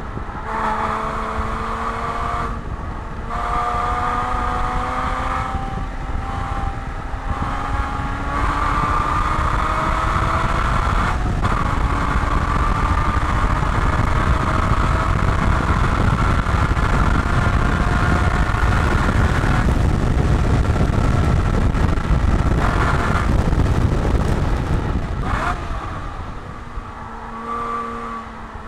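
Porsche 981 Boxster's flat-six engine heard from inside the cabin under full throttle on track: the engine note climbs, breaks for a gear change about three seconds in, then rises slowly for a long stretch as speed builds, with heavy wind and road noise. Past the twenty-second mark the engine note gives way to rushing noise as the car slows, and it returns lower near the end after downshifts.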